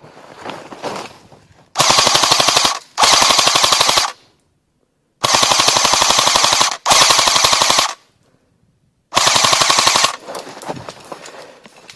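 Airsoft gun firing on full auto in five short bursts, each a rapid, even rattle of shots lasting about a second, the first two and the middle two close together.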